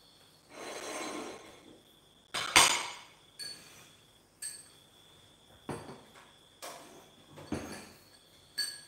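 Drinking glasses and plates set down and moved about on a kitchen countertop. A brief scraping sound comes about half a second in. Then come about eight sharp clinks and knocks, roughly one a second, some with a short glassy ring.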